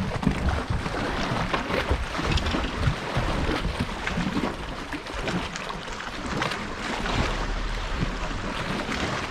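Wind buffeting the microphone and water lapping against a boat hull, with scattered light clicks and knocks of handling on the boat deck.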